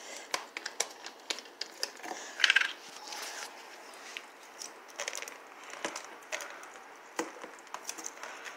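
Plastic multivitamin bottle being opened and handled: a run of sharp clicks and taps from the cap and bottle, with a short, loud crackling rasp about two and a half seconds in.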